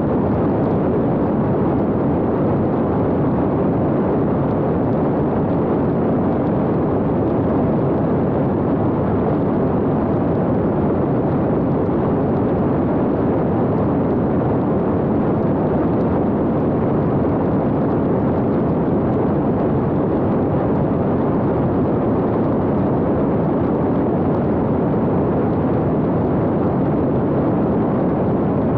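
Steady, even rushing noise of an X-UAV Talon fixed-wing drone in flight, heard through a camera mounted on the airframe: airflow over the microphone mixed with the propeller drive.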